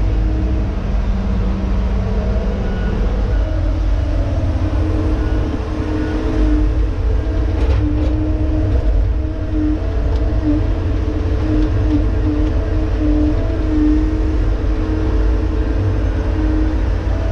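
Tigercat log loader's diesel engine and hydraulics running under load, heard inside the cab: a deep steady rumble with a hum that rises and falls as the boom and grapple work, and a brief knock about eight seconds in.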